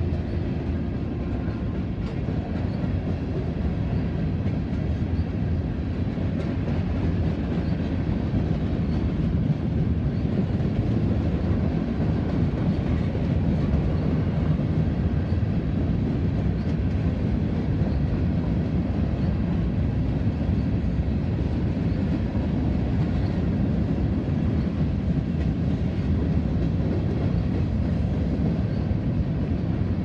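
Loaded hopper cars of a rock (aggregate) freight train rolling past: a steady low rolling noise of steel wheels on the rails that holds throughout.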